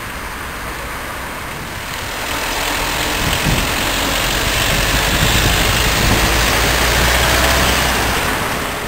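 Wind rushing over the microphone, with road noise, while riding a bicycle. The rushing grows louder about two seconds in and eases off near the end.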